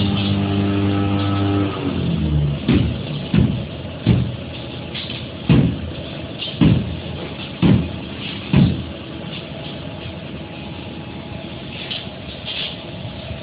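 Machinery or vehicle noise: a steady droning tone that stops about two seconds in, then seven low thumps about a second apart, then a steady rumble.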